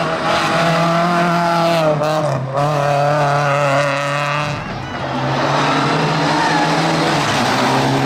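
Hillclimb race car's engine pulling hard at high revs, with a gear change about two and a half seconds in that drops the pitch, a brief lift off the throttle near five seconds, then pulling steadily again.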